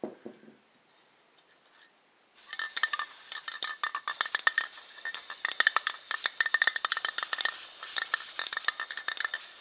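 Aerosol spray paint can spraying: a steady hiss that starts suddenly about two and a half seconds in, spitting and crackling all the way through.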